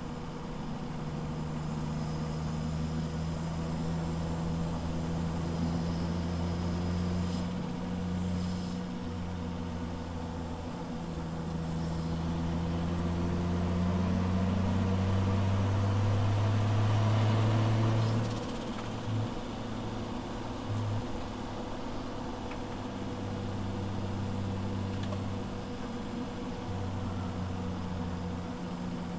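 Toyota JZX100 Tourer V's 2.5-litre turbocharged straight-six (1JZ-GTE) running under load, heard from inside the cabin. The revs climb to a peak past the middle, then drop off sharply as the throttle is lifted, with two short blips shortly after.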